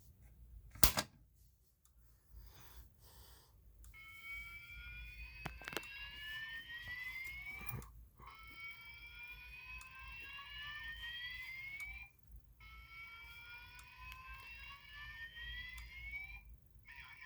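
Fire-alarm voice-evacuation speaker sounding a whoop tone: a rising sweep about four seconds long, repeated three times with short breaks. A sharp click comes about a second in.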